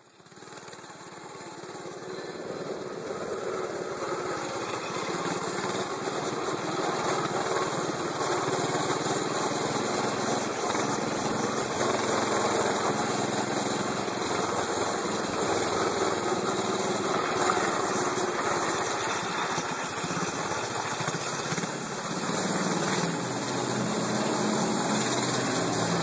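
Small 7 hp Predator single-cylinder four-stroke engines running steadily at riding speed on a minibike and stand-up scooter, under a constant rush of wind. The sound fades in over the first couple of seconds.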